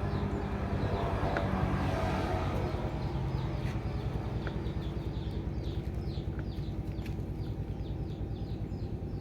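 A steady, evenly pulsing low engine rumble, with short high chirps repeating a few times a second over it.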